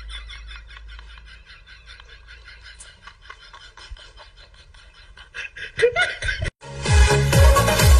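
Background music: a quiet keyboard tune pulsing about five times a second, a brief vocal sound about six seconds in, then after a short break loud electronic dance music with a heavy beat starts near the end.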